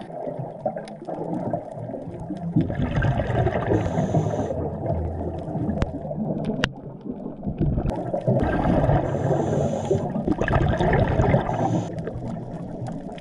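Underwater sound of a scuba diver's regulator breathing: bubbling exhalations swell up twice, about two and a half seconds in and again from about eight and a half seconds, over a steady low rush of water, with a few sharp clicks.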